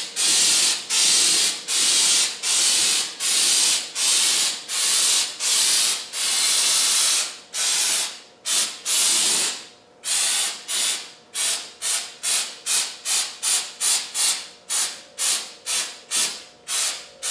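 Aerosol can of Proform PF560 stone chip protector spraying in short hissing bursts as a light coat is put on, about two bursts a second at first. After a short pause about halfway through, the bursts come shorter and quicker, about three a second.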